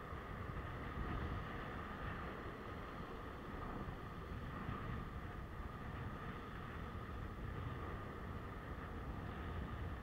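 Ocean swell washing and breaking against a rock platform, mixed with wind on the microphone: a steady noise with a low rumble.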